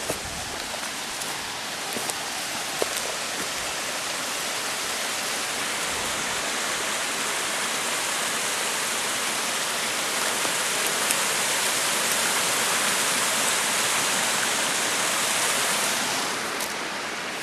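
Rushing water of a small waterfall, a steady hiss that slowly grows louder, then eases off a little near the end.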